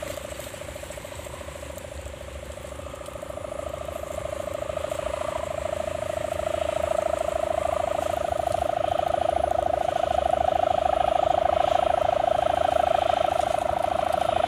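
Sendaren hummer on a large flying kite, tuned for the 'Dompeng' sound: one steady droning tone with a fast pulse running through it. It fades a little at first, then grows louder over the last several seconds as the wind takes it.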